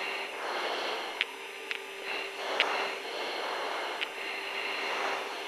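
Steady hiss of an open aircraft radio/intercom channel between transmissions, swelling slightly now and then, with a faint steady hum and a few small clicks.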